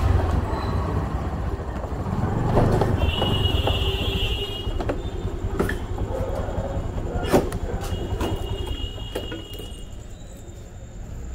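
Scooter ride noise heard from the handlebar: low engine and road rumble that slowly fades as the scooter slows. There are a few sharp knocks, and two short high-pitched tones, each about a second long, about three and eight seconds in.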